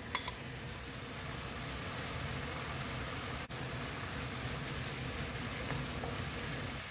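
Soy-sauce glaze boiling and sizzling steadily in a pan as mussels are reduced in it, with a couple of light clicks just after the start as the mussels go in.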